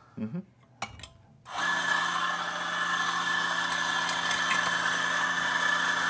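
A click as the timer button is pressed, then about a second and a half in the Quamar M80's 450-watt motor and 63 mm flat burrs start up. It runs steadily with a low hum and a high whine, grinding out the beans left in the grinder after the hopper's trap door is closed.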